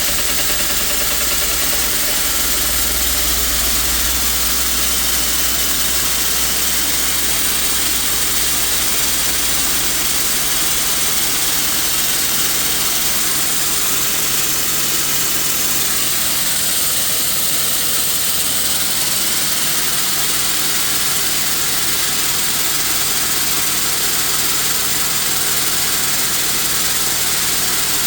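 Air-over-hydraulic ram on an engine hoist running on compressed air: a loud, steady hiss with a mechanical pumping hum as the air-driven pump works the ram.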